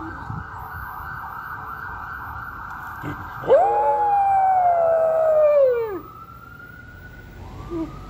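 Ambulance siren wailing steadily while a dog howls along with it. About three and a half seconds in, the dog gives one long howl, the loudest sound, which slowly falls in pitch and ends about two and a half seconds later. After the howl the siren tone rises again.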